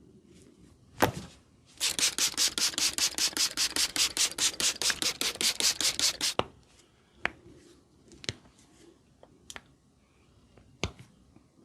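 A barber's hands rubbing briskly and rhythmically during a head massage, about six or seven strokes a second for some four and a half seconds. A sharp snap comes just before the rubbing, and a few single clicks follow it.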